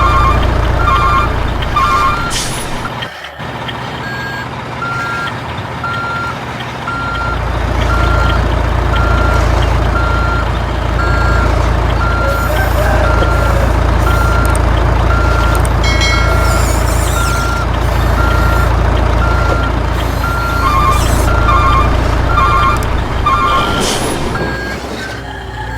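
Truck reversing alarm beeping evenly, about three beeps every two seconds, over a steady diesel truck engine rumble, which drops away briefly a few seconds in.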